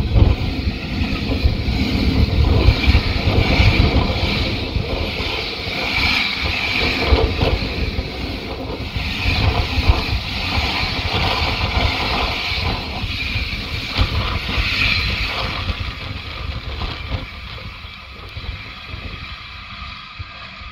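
Freight train of container and tank wagons passing close at speed: steady rumble and rattle of wagon wheels running on the rail, dying away over the last few seconds as the end of the train goes by.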